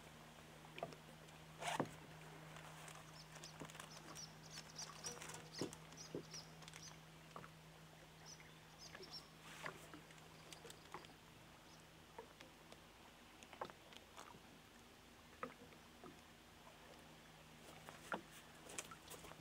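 Near silence: a steady low hum with faint scattered knocks and clicks, the loudest about two seconds in, and a few faint high chirps in the first half.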